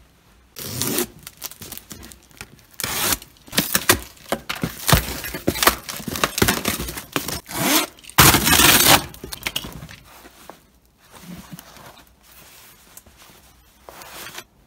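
Cardboard parcel being torn open: packing tape and duct tape ripped off and cardboard flaps torn, in a run of loud ripping noises, the loudest about eight seconds in. Softer rustling follows as a towel and bubble wrap are lifted out.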